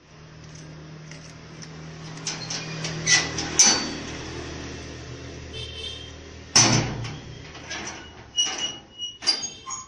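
A slatted metal sliding gate is pushed along its track with a low rumble and scattered clanks. A loud clang comes about six and a half seconds in, followed by several lighter knocks and rattles.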